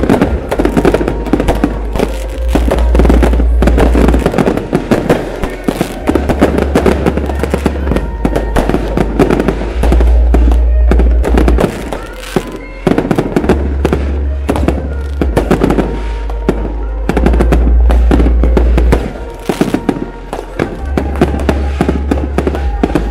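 Aerial fireworks going off in a dense, continuous barrage of bangs and crackles, with loud bass-heavy music under it.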